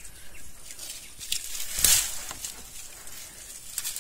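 Leaves rustling and stems snapping as sprigs are picked by hand from a leafy shrub, with a few short cracks, the sharpest about two seconds in.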